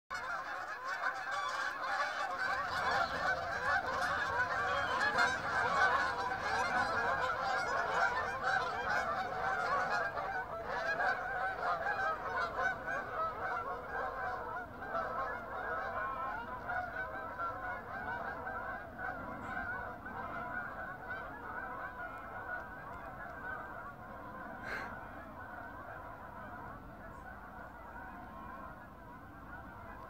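A large flock of Canada geese honking in flight, many calls overlapping at once. The honking is loudest in the first third and fades steadily through the rest.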